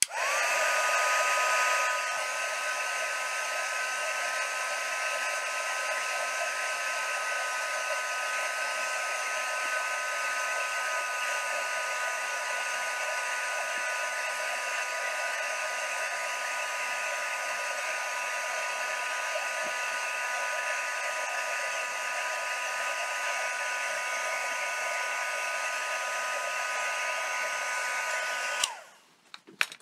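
Embossing heat gun running, blowing hot air with a steady high whine, then stopping suddenly near the end. It is heating shrink-plastic petals until they soften for shaping.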